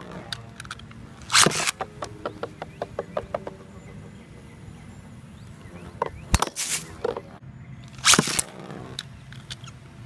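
Two metal Beyblade spinning tops, Galaxy Pegasus W105R2F and Sol Blaze V145AS, battling in a plastic stadium with sharp clacks as they strike each other and the stadium walls. There is a loud hit about a second and a half in, then a quick run of lighter clicks, and more loud hits after six and eight seconds.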